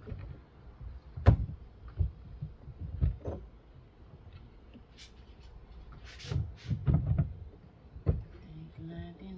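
Irregular knocks and clatter of a car's plastic trunk lining and taillight housing being handled by hand, the loudest knock about a second in and a cluster of knocks past the middle. A short low hum near the end.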